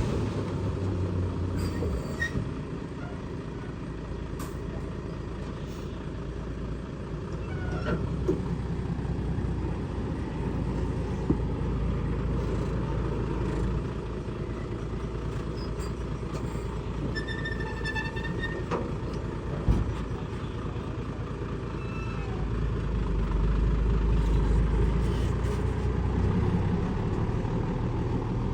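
Kubota DC70 rice combine harvester's diesel engine running steadily, growing louder a little before the end.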